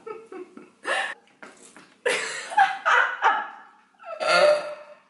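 A woman laughing in short bursts, with breathy gasps between them.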